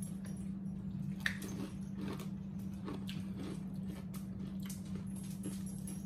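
Close-up mouth sounds of eating baked spaghetti: wet chewing, slurping and lip smacks in short scattered bursts, over a steady low hum.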